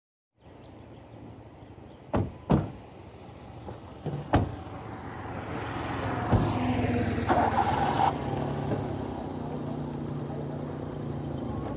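Suzuki Alto car doors shut twice in quick succession about two seconds in, with more knocks after, then the small car engine starts and runs steadily. A high, wavering whistle joins about eight seconds in and carries on.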